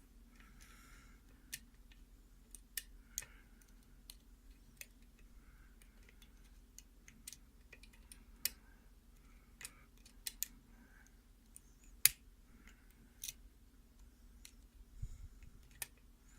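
Faint, irregular small metal clicks of a hook pick working the pin stacks of a mortise lock cylinder under tension, with one sharper click about twelve seconds in.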